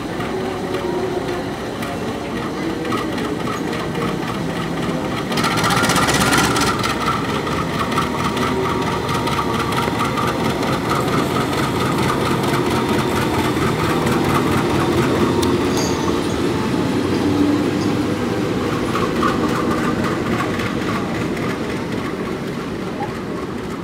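Diesel locomotive's engine running as it pulls slowly away along the station tracks, with a short loud hiss lasting about a second around five seconds in.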